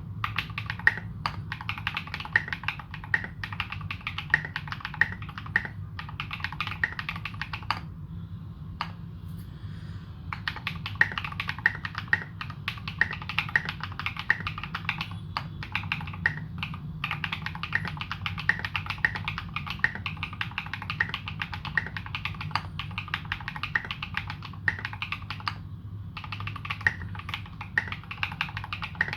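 Typing on a Morgan65 custom mechanical keyboard with modded Holy Panda tactile switches and SA-profile keycaps: quick, continuous keystrokes. It pauses for about two seconds eight seconds in and briefly again near the end.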